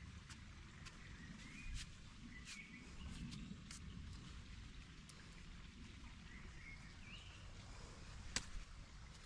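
Quiet handling noise as gloved hands press soil into plastic plant pots, with a few short bird chirps scattered through. A single sharp click about eight seconds in is the loudest sound.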